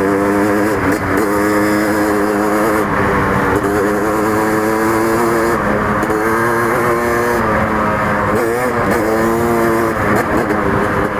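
KTM 300 two-stroke dirt bike engine running, its pitch wavering up and down with the throttle, with a dip and climb in revs about eight and a half seconds in.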